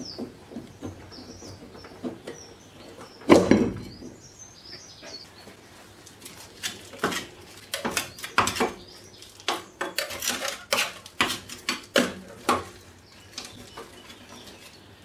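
Metal handling on a steel mower deck: a belt pulley worked off its spindle by hand, with one loud clunk about three seconds in, then a run of short scrapes and knocks as caked grass and dirt is scraped out around the bare spindle. Birds chirp faintly during the first few seconds.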